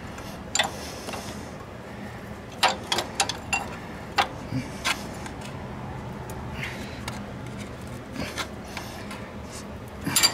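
Scattered metallic clicks and clinks of a wrench working a power steering line nut on the steering gear, the fitting just broken free, with a cluster of quick clicks a few seconds in.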